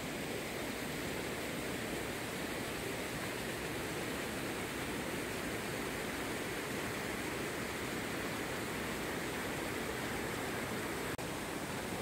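Steady rush of water pouring over a concrete dam spillway, the reservoir full and overflowing. The sound breaks off for an instant near the end.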